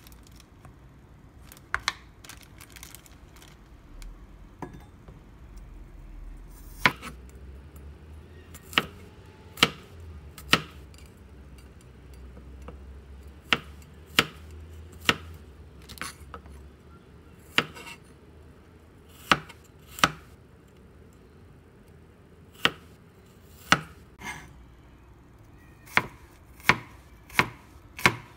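Chef's knife slicing peeled garlic cloves on a plastic cutting board: sharp single knocks of the blade striking the board at an uneven pace, about one a second, coming quicker near the end.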